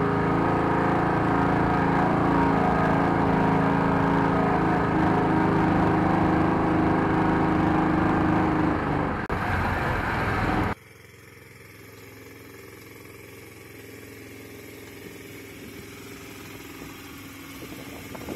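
Engine of a homemade all-terrain vehicle on large balloon tyres, heard from inside its fabric-covered cab, running steadily at an even pitch while driving over rough grass. About eleven seconds in the sound cuts abruptly to the same kind of vehicle heard from outside, much quieter and growing slightly louder toward the end.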